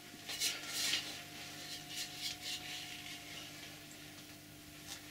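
Short scraping and rubbing noises as the wet, rusty axe head is handled. There is a cluster about half a second to a second in, then a few shorter scuffs later, over a faint steady hum.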